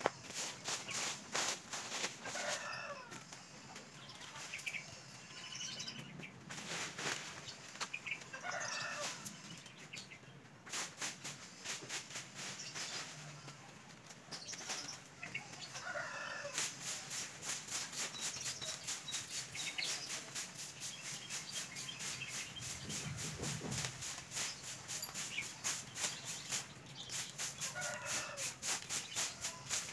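Chickens clucking now and then, over a fast, steady scratchy ticking.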